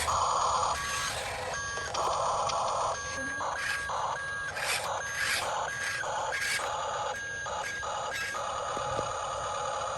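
Small electric motors and gearboxes of radio-controlled construction models running in many short stop-start bursts, with electronic beeping tones alongside.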